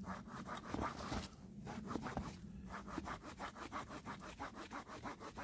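Thick wood-saw blade of a Daicamping DL30 multitool sawing through a wooden stick in quick back-and-forth strokes.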